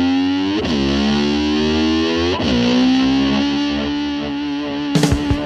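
Distorted electric slide guitar holds a note and twice swoops down and back up in pitch, in imitation of a motor scooter revving. Drums and the full rock band crash in just before the end.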